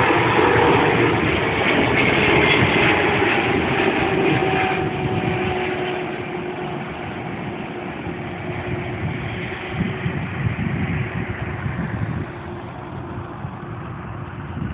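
Jet engines of a Boeing 777-200 Freighter (GE90 turbofans) at takeoff power, moving away: a loud steady rumble with whining tones that slowly fall in pitch, fading gradually over the second half.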